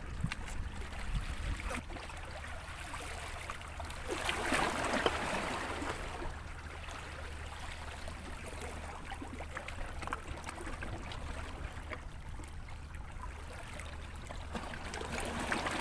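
Sea water washing and sloshing at the water's edge, swelling louder about four seconds in and again near the end, with scattered small clicks and a steady low rumble underneath.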